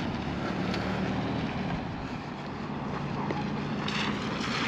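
An engine running steadily with a low hum that dips a little midway and comes back, over wind and outdoor noise.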